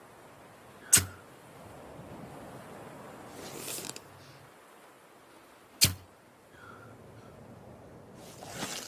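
Crossbow shooting twice, about five seconds apart, each shot a sharp snap of the string. A couple of seconds after each shot comes a rising hiss that cuts off suddenly.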